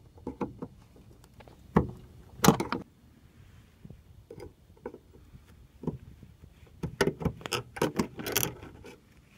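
Flathead screwdriver prying at the end fitting of a hood lift strut: scattered metal clicks and scrapes, a few single ones, then a quicker cluster of clicks near the end as the fitting is worked loose.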